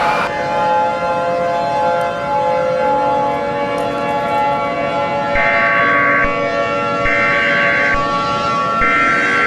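Siren sound: a steady wail of several held tones, which changes abruptly just after the start. About halfway through, a higher tone comes in three times, each for about a second.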